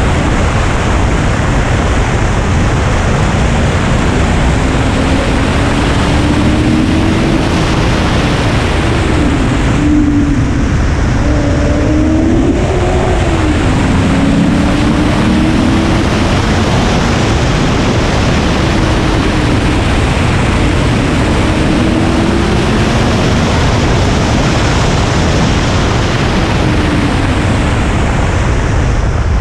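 Car engine revving up and dropping back several times as the car is driven hard on a track, under heavy rushing wind noise.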